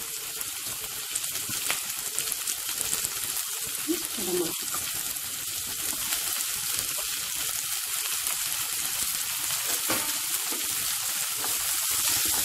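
Chopped onion, carrot and capsicum sizzling in hot oil in a wok-style pan, a steady hiss that grows a little louder; near the end a spatula stirs them.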